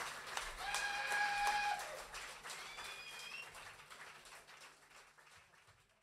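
Concert audience clapping and whistling, with a few held whistles or shouts near the start. It fades out steadily over the last few seconds.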